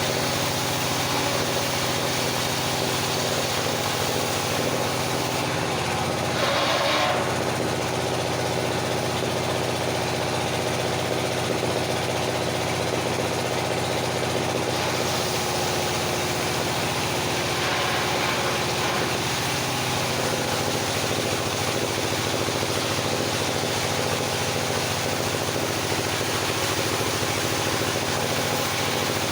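Engine of a circular sawmill running steadily at idle, with a brief louder noisy patch about seven seconds in.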